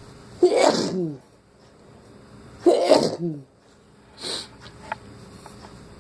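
A person sneezing twice, about two seconds apart; each is a sudden loud burst ending in a falling cry. A brief, quieter breath noise follows about a second later.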